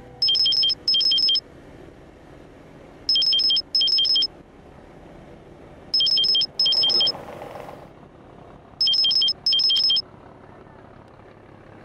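Mobile phone ringing: a high trilling ringtone in pairs of short rings, repeated about every three seconds, four times.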